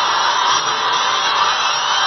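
Film soundtrack of an animated wildebeest stampede played backwards: a dense, steady mass of hoof-and-herd noise mixed with the orchestral score, heard off a screen's speaker.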